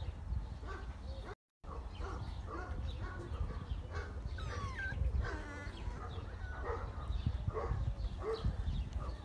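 Saint Bernard puppies yipping and whining in play, short high calls scattered throughout, with a longer wavering whine about five seconds in.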